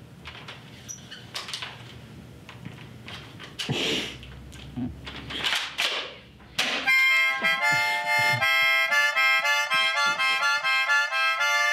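Harmonica sounding loud chords that change several times a second, starting suddenly about seven seconds in, right after a short sharp burst. Before that there are only a few faint, brief noises.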